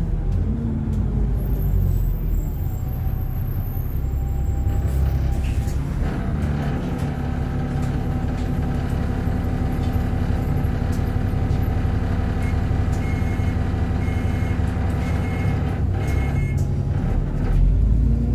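Diesel engine and drivetrain of an Alexander Dennis Enviro400 double-decker bus with a Voith gearbox, heard from inside the bus: a steady low rumble with a pitched whine that strengthens into steady tones about six seconds in as the bus pulls. A run of short high beeps sounds about two-thirds of the way through.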